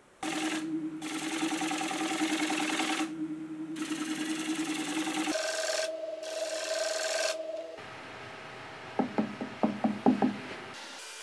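Wood lathe running while a turning tool works the spinning slash pine, a steady motor hum under a rasping scratch that breaks off briefly a few times. About five seconds in the hum jumps higher in pitch, then stops, and several sharp knocks follow, with a louder click at the end.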